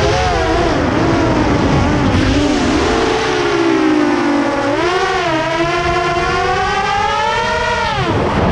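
An FPV drone's electric motors and propellers whine under heavy load, the pitch wavering up and down with throttle. About five seconds in the pitch climbs sharply and holds high, then falls away just before the end.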